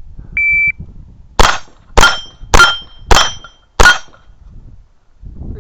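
A shot timer beeps once, then five .22 rimfire shots follow at a steady pace about 0.6 seconds apart, each trailed by the ring of a hit on a steel target.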